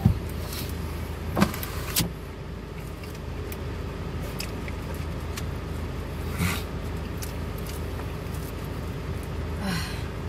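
Steady low hum inside a running car, broken by a few short clicks and smacks of a sandwich being handled and eaten. The loudest click comes right at the start, with two more about a second and a half and two seconds in.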